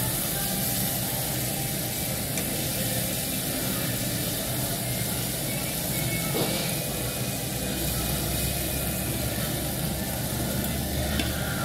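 Pork belly sizzling on a tabletop barbecue grill, a steady hiss, with a single light click about six and a half seconds in.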